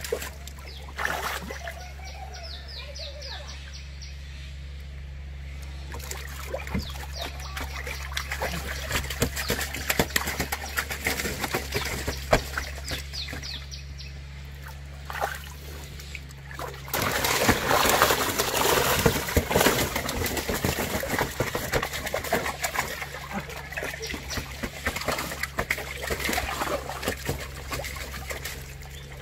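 River water splashing and sloshing irregularly as a person chest-deep in it gropes among submerged tree roots, with a louder burst of splashing a little past the middle. A steady low hum runs underneath.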